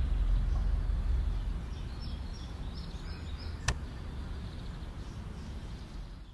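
Outdoor background rumble, low and steady, easing after about a second and a half, with one sharp click about three and a half seconds in and faint bird chirps.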